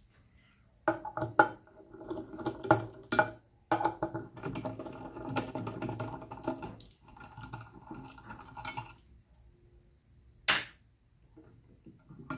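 Metal clinking and scraping of hand tools on the annealer's turntable disc as its fasteners are undone to take the disc off, in several stretches with sharp clicks, then one sharp knock near the end.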